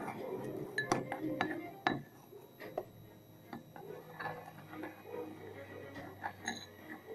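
Scattered light clicks and knocks of small containers and objects being handled, a few of them sharper than the rest.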